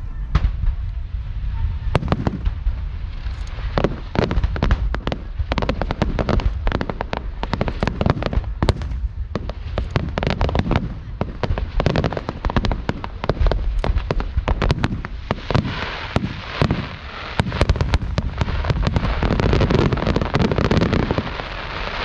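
Aerial fireworks going off in quick succession: a steady barrage of irregular bangs and pops over a low rumble, with a denser burst of crackling near the end.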